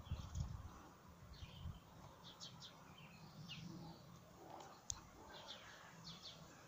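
Faint, repeated short chirps of birds in the background. A low rumble in the first two seconds, and a single sharp click about five seconds in.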